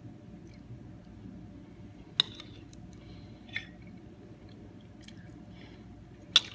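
Quiet eating: a utensil clinks sharply against a dish about two seconds in, more softly a second and a half later, and twice loudly near the end, over faint chewing.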